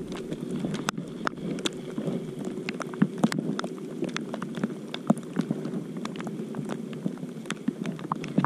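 Rain shower: scattered raindrops ticking sharply close to the microphone over a steady muffled hiss of rain, heard through a microphone tucked in a hoodie pocket.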